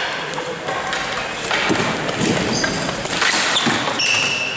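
Ball hockey play on an indoor floor: knocks of sticks and ball, with short high squeaks of sneakers on the surface.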